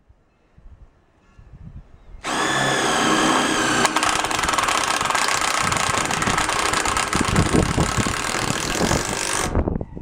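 Cordless drill starts about two seconds in and runs steadily for about seven seconds, driving a screw into the container's sheet-steel wall panel, then stops.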